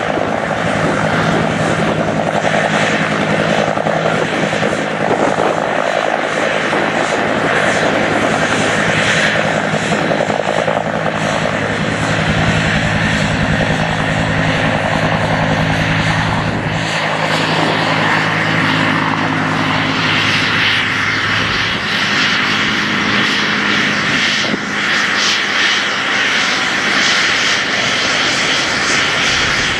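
Bell UH-1 Huey helicopter's Lycoming T53 turbine engine and main rotor running at takeoff power as it hovers low and then lifts away. The sound is loud and steady, and its deepest notes thin out from about halfway through as the helicopter climbs off.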